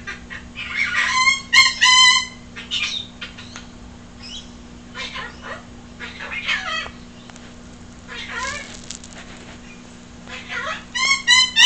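Laughing kookaburra calling: harsh chuckles and gliding notes, breaking into quick runs of ringing 'ha-ha' notes about a second and a half in and again near the end.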